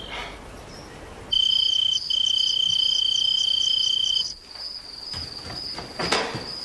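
Crickets chirping at night: a loud, steady high trill starts about a second in and stops about three seconds later, while a fainter, evenly pulsing cricket chirp carries on underneath.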